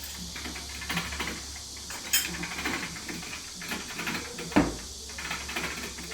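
Rapid, irregular clicking and rattling, with two sharp knocks about two seconds and four and a half seconds in, the second one the loudest, over a steady low hum.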